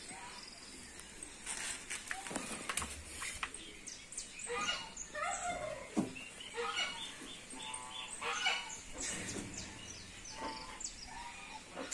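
Several captive birds calling in an aviary: many short, high chirps overlap throughout, with a few louder, lower calls near the middle and towards the end.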